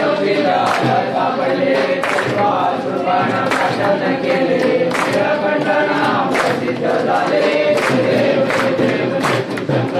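A crowd of men singing a Ganesh aarti together in unison, with sharp percussive strikes keeping a steady beat, about three every two seconds.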